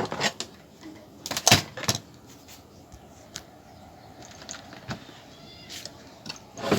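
Sharp clicks and knocks from the TV and tools being handled on a workbench: one at the start, a quick cluster about a second and a half in, small ticks after, and another knock near the end.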